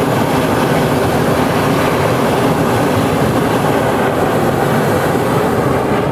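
Hot-air balloon's propane burner firing in one long blast, a loud steady roar that cuts off abruptly near the end, heating the envelope for lift-off.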